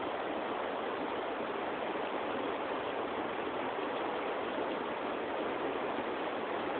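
A wild river rushing steadily, a constant even rush of water.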